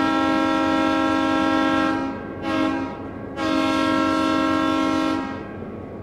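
Steam train whistle sounding a chord of several notes: a long blast, a short one, then another long blast. A hiss runs under the blasts and dies away after the last one.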